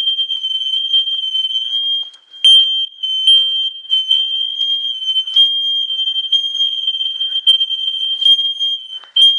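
Household smoke alarm sounding on test, a steady high-pitched tone that breaks off only briefly about two seconds in: the alarm is working.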